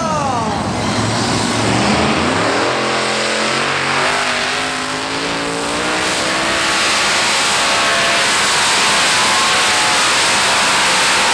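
Heavy modified pulling tractor's engine revving up, its note climbing over the first few seconds. It then runs loud and steady at full power.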